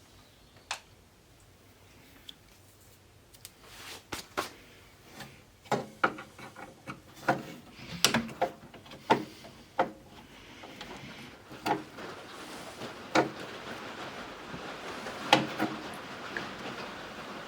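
Hand work fitting a pinball machine's ball shooter: scattered clicks and knocks of metal parts and a screwdriver. From about two-thirds of the way through, a steady hiss of rain grows louder beneath them.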